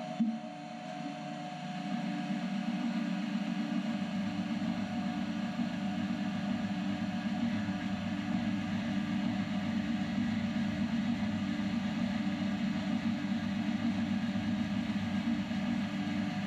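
DeWalt portable band saw mounted in a bench stand, its motor running steadily; it starts with a click and comes up to its full level about two seconds in.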